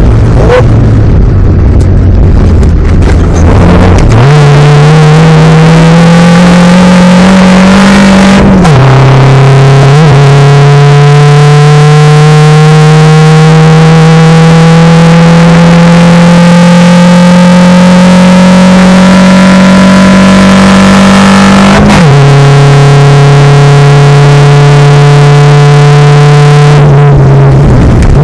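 Race car engine, loud from inside the cabin, pulling hard on a circuit. The revs jump up about four seconds in and climb, fall sharply at an upshift about eight seconds in, climb slowly for a long stretch, then drop again at further gear changes after about twenty-two seconds and near the end.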